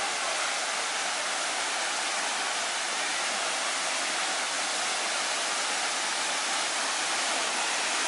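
Waterfall dropping through a hole in a sandstone rock overhang into a pool, giving a steady rushing hiss of falling water.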